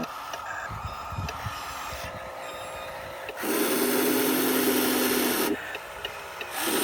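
Radio-controlled construction models running: small electric drive motors and gears whirring. A louder, steady run starts about three and a half seconds in and cuts off abruptly after about two seconds, with another brief loud run starting right at the end.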